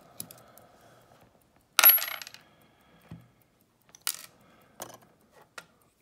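Metal parts of a Faultless lock cylinder clinking as it is taken apart: one sharp metallic clatter with a brief high ring about two seconds in, then a few lighter clicks.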